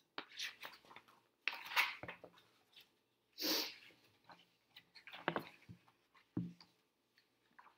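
Paper pages of a picture book being flipped and handled: a run of rustles and flaps, the loudest a single page swish about three and a half seconds in.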